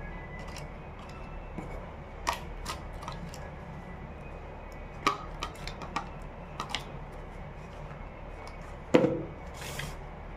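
Clicks and taps of hands handling cardboard phone packaging and its plastic accessories, with a louder knock about nine seconds in followed by a short rustle, over a steady low hum.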